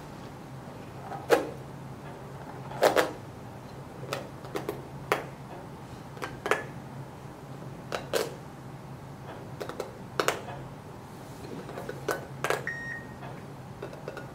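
Rubbery spiky squishy toy being squeezed and handled, giving irregular sharp clicks and crackles about once a second over a steady low hum.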